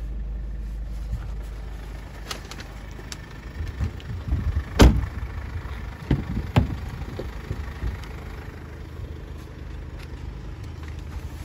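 Mercedes-Benz GLA car doors: a loud thump about five seconds in as a door is shut, then a sharper clunk under two seconds later as the rear door latch is opened, amid handling noise. A low steady hum is heard in the first few seconds.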